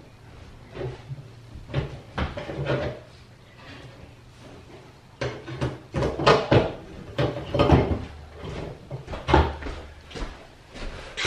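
Flat bar prying at old wooden boards and nails: irregular metal-on-wood scrapes, knocks and creaks of the wood, busier and louder from about halfway through.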